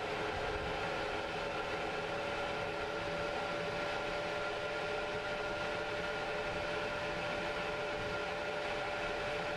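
1978 Chevy Stepside pickup cruising at a steady speed, heard from inside the cab: a constant engine and drivetrain hum with road noise and a steady whine.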